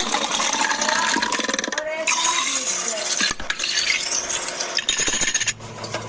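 Busy clinking and clattering of containers and jars being handled while restocking a fridge: many small knocks and rattles, with some short ringing notes.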